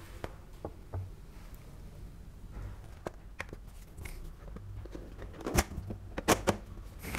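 Quiet kitchen handling: a glass bowl and an aluminium cake tin shifted on a countertop with light clicks. A few sharper knocks come between about five and a half and six and a half seconds in, as the tin is turned upside down onto a plastic cutting board.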